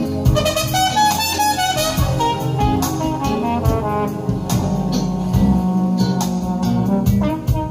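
Jazz recording played from a vinyl record on a turntable: a brass solo over guitar and bass, with a quick rising run about a second in.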